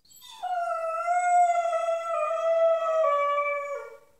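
Pit bull puppy howling: one long howl that holds a steady pitch and dips and fades near the end.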